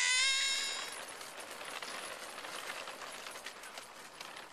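A toddler's short high-pitched squeal, falling slightly in pitch and fading over about a second. It is followed by a quieter, even rustle with faint ticks.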